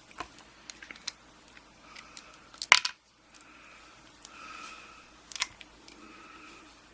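Small metallic clicks of a picked-open padlock and lock-picking tools being handled, with one loud sharp metal clack about two and a half seconds in.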